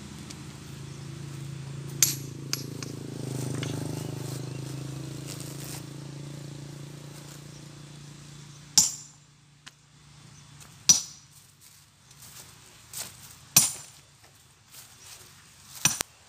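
A motor vehicle's engine runs steadily and fades away about halfway through, while sharp clinks of stone knocking on stone sound every second or two, the loudest in the second half.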